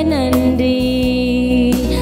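Woman singing a Tamil Christian devotional song over recorded backing music, holding long sliding notes.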